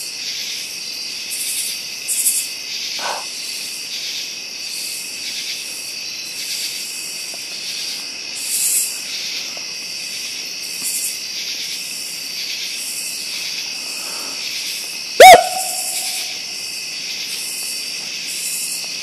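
Night chorus of crickets and other insects: a steady shrill trilling with pulsing bursts of higher buzzing. About fifteen seconds in, one loud sudden sound cuts in, followed by a short steady mid-pitched tone lasting about a second.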